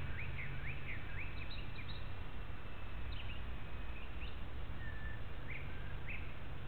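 Birds chirping, many short quick calls that sweep up and down in pitch, over a steady low rumble.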